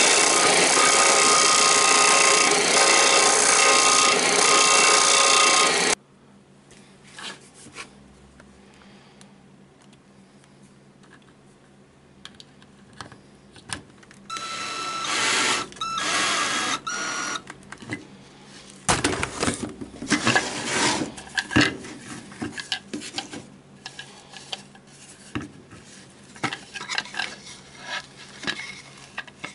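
Combination belt and disc sander running, cutting off abruptly about six seconds in. After a stretch of quiet clicks, a cordless drill drives screws in two short runs, then scattered clicks and knocks as parts are handled.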